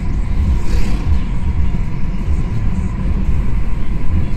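Road and drivetrain noise inside the cabin of a BMW 318i (F30) cruising at about 100 km/h: a steady low rumble, with a brief hiss a little under a second in.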